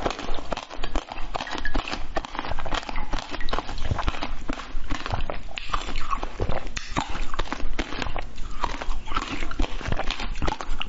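Close-miked wet mouth sounds of biting, sucking and chewing on a long strip of jelly topped with seeds: a dense, irregular run of squishy clicks and smacks.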